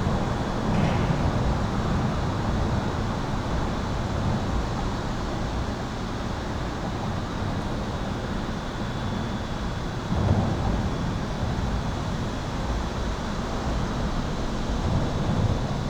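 Steady highway traffic rumble heard from beneath an overpass, with a thin high-pitched steady tone running through it. A louder swell, such as a heavier vehicle passing, comes about ten seconds in.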